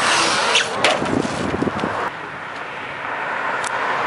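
Radio-controlled truck on a high jump: a rush of noise, a sharp knock about a second in and a few low thuds as it comes down, then a car passing on a road near the end.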